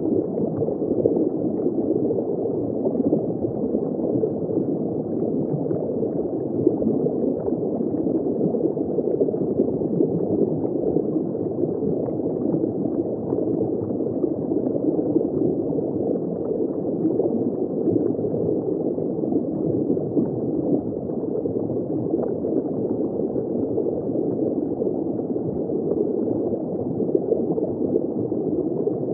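Steady, muffled gurgling and rushing of circulating water in a saltwater reef aquarium, heard from a camera submerged in the tank.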